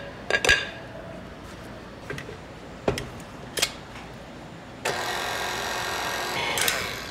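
A few clinks and knocks of glass bowls as flour is tipped into a KitchenAid stand mixer's glass bowl, then, about five seconds in, the mixer's motor runs steadily for about two seconds, mixing the dough.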